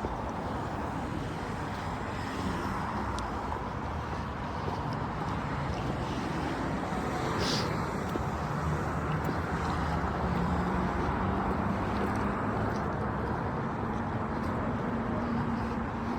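Steady outdoor street noise with traffic, a vehicle engine's hum growing stronger in the second half. A short high hiss about seven and a half seconds in.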